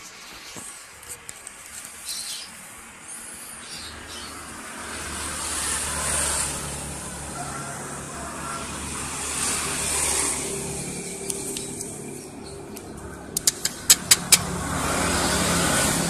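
Passing road traffic: vehicles swell up and fade away one after another, about three passes. A quick run of sharp clicks comes near the end.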